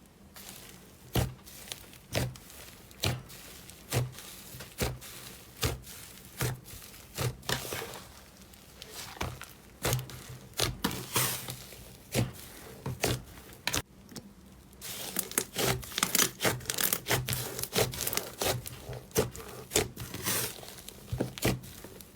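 Slime being squeezed and poked by hand, giving irregular sharp pops and crackling clicks, with a short quieter pause about two-thirds of the way through and quicker clicking after it.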